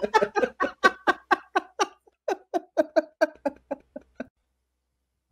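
Two men laughing: quick, even bursts of laughter, about five a second, that grow fainter and stop about four seconds in.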